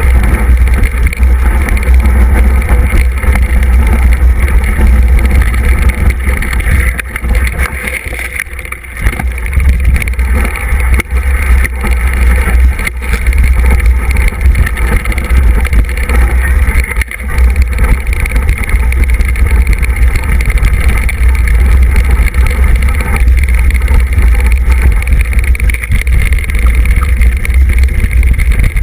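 Mountain bike descending a rocky dirt trail, heard from a camera riding on the bike or rider: a heavy, steady low rumble of wind and trail vibration with scattered rattling knocks. It eases briefly about eight or nine seconds in.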